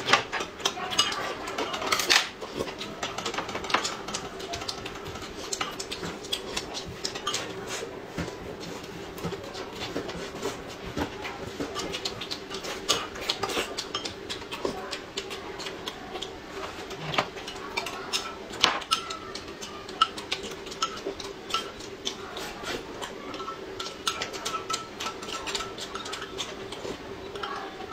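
Chopsticks and a spoon clinking against plates and a glass during a meal, many short sharp clicks and knocks at irregular intervals, over a faint steady hum.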